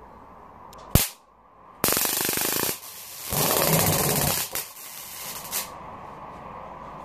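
A big home-made flame-throwing lighter being fired: a sharp click, then two bursts of rushing gas about a second each. The second burst burns as a large fireball, followed by a couple of short flare-ups.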